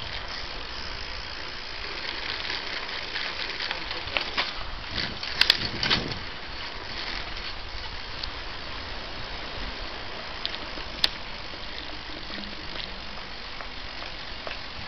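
Bicycle rolling along a city street, a steady rushing noise of tyres and moving air, with a cluster of sharp rattling knocks about five to six seconds in and a single sharp click about eleven seconds in.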